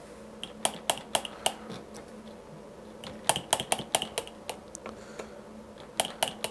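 Sharp small clicks and taps of metal parts and hand tools being handled while working on a bicycle's linear-pull (V-) brake, coming in short irregular clusters of several clicks each. A faint steady hum runs underneath.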